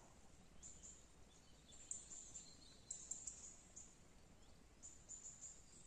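Near silence: faint outdoor background with a few short, high chirps every second or so.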